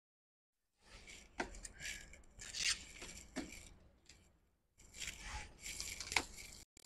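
Rustling and scraping of hands handling small parts and their packaging, in two spells of about three and two seconds, with a few sharp clicks.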